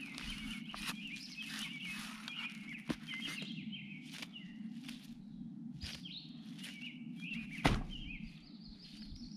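Plastic cling wrap crinkling and rustling as a raw beef roast is unwrapped in its foam tray, then a sharp thump about three-quarters of the way through as the meat is set back down in the tray. Small birds chirp repeatedly throughout, over a steady low hum.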